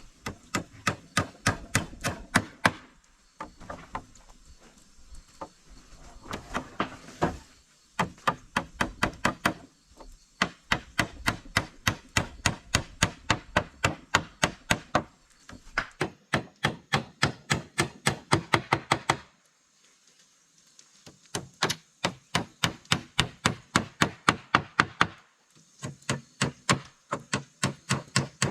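Rapid, evenly spaced blows of a hand tool striking wood, about three a second, in runs of several seconds with short pauses between them.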